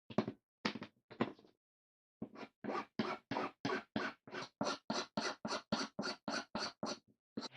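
Rhythmic scraping strokes by hand, back and forth at about three a second: three separate strokes, then an even run of about sixteen that stops near the end.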